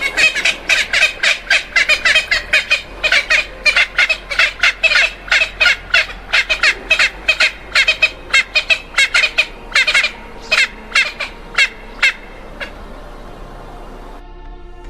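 A bird calling in a long run of short, harsh squawking notes, about three a second, that stops about twelve seconds in.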